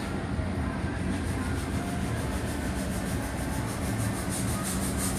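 Steady low mechanical rumble with a fast, even high-pitched pulsing, about six or seven a second, that comes in about a second in.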